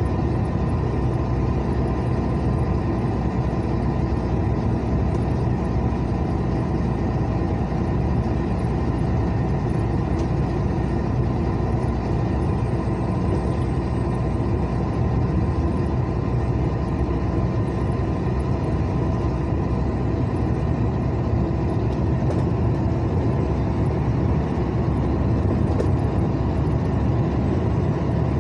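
Steady engine and road noise of a vehicle cruising along a paved highway, heard from inside the cabin.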